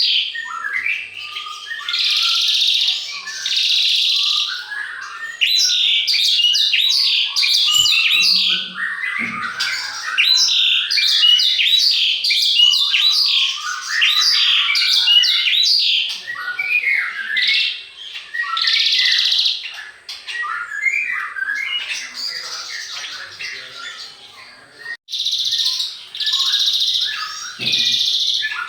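Songbirds singing and chirping in quick, dense runs of notes, broken by a few harsher, scratchy calls that last a second or two each.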